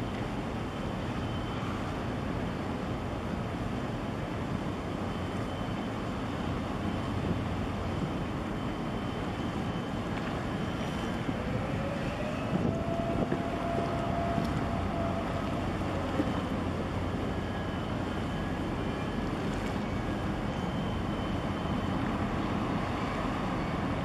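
Steady low engine rumble mixed with wind and water noise as a large container ship slides past on its way out of port. About halfway through, a faint tone rises, holds for a few seconds and falls away.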